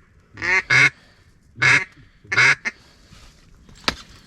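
Four loud, nasal duck quacks, the last two spaced almost a second apart. Near the end comes a single sharp click.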